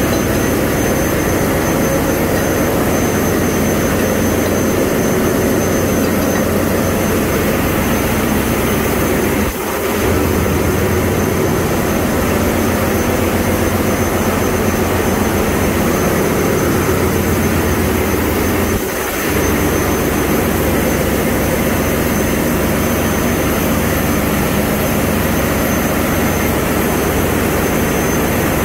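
Loud, steady ship's engine-room machinery noise, with a faint high whine over it, dipping briefly twice. The Wärtsilä 6L20 auxiliary engine is still stopped at zero rpm with its prelube pump running, so the noise is other machinery already running in the engine room.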